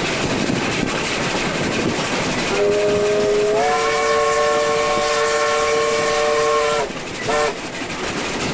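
Steam locomotive whistle blowing one long blast that starts about two and a half seconds in and steps up slightly in pitch a second later, followed by a short toot. It sounds over the steady running noise and wheel clatter of the train, heard from an open carriage just behind the engine.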